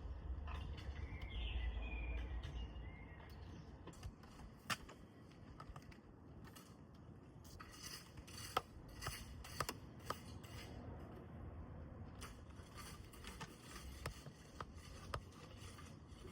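Faint, irregular clicks and taps of small parts being handled, spread through most of the stretch, over a low rumble in the first few seconds. A short bird chirp is heard about a second and a half in.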